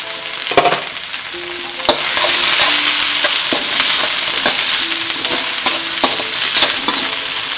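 Diced capsicum, onion and beans sizzling in hot oil in a metal wok, stirred with a slotted metal spatula that scrapes and knocks against the pan several times. The sizzle grows louder about two seconds in.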